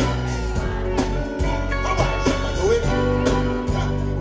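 Live band playing reggae backing music through a concert sound system, with a steady bass line and regular drum hits.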